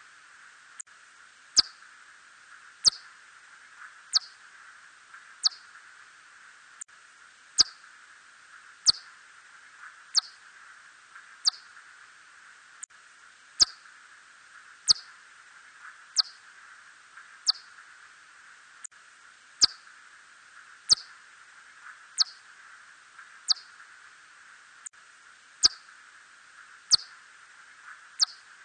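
Red bat (Myotis rufoniger) calls: short downward-sweeping chirps repeating evenly about every 1.3 seconds over a steady hiss.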